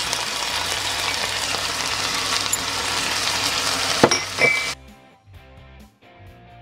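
Ground turkey and vegetables sizzling in a hot frying pan as they are stirred, with two sharp knocks about four seconds in. The sizzle cuts off suddenly near five seconds, leaving soft background music.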